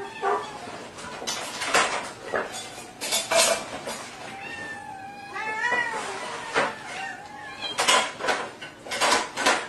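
A domestic cat meowing, with one wavering meow about five seconds in, amid repeated sharp clattering knocks.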